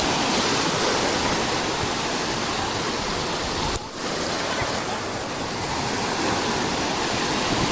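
Sea surf washing onto a beach: a steady, dense rush of breaking waves, with a brief dip just before the middle.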